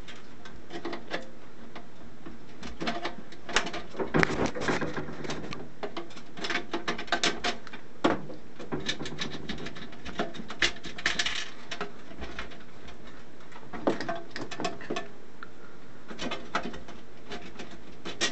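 Scattered clicks, knocks and rattles of hands and tools working wiring and banana jacks loose from an oscilloscope's sheet-metal chassis, coming in irregular busy spells, with a few short pitched squeaks among them.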